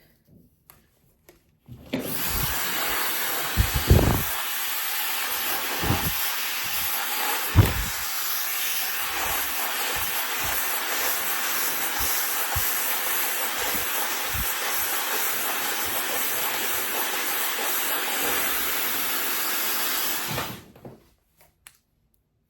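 Handheld hair dryer blowing hair dry, switched on about two seconds in and off suddenly near the end, a steady rushing hiss. A few low thumps sound in its first half.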